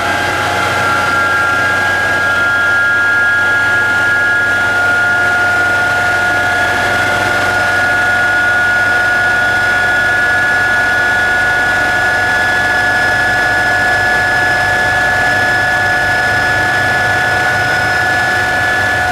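Lehigh gap-bed engine lathe running under power, its spindle drive giving a loud, steady whine whose pitch creeps up slightly over the first few seconds and then holds.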